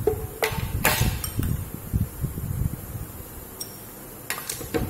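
Ice cubes spooned out of a bowl and dropped into a blender jar: a run of clinks and knocks of ice, spoon and bowl over the first few seconds, then a few more sharp clinks near the end.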